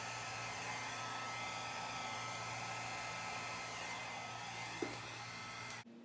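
Handheld hair dryer running steadily, blowing wet acrylic pour paint across a canvas, with one short click a little before the end. It then stops suddenly.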